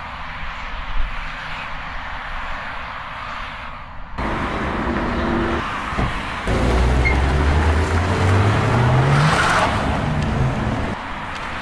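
Hyundai Tucson SUV accelerating hard away, its engine note rising steadily, with a rush of tyre noise near the end as it spins off.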